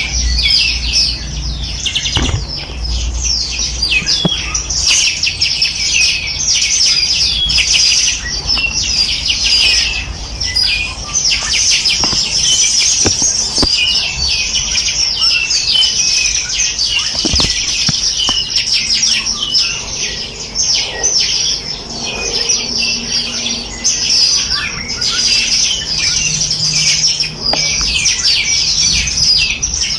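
A dense chorus of many small songbirds chirping and trilling without a break, the calls high-pitched and overlapping.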